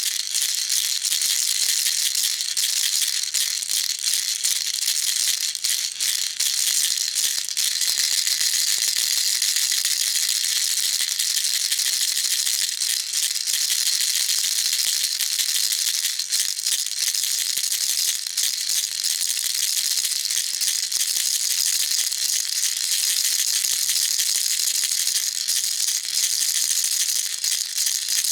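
Baby rattle shaken without pause: a dense, steady, high-pitched rattling.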